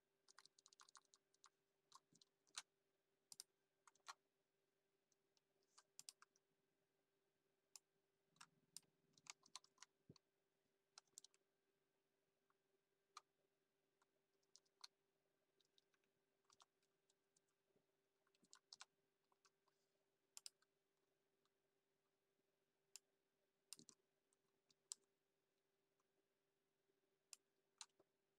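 Faint computer keyboard keystrokes, sparse and irregular with occasional quick clusters, over a faint steady hum.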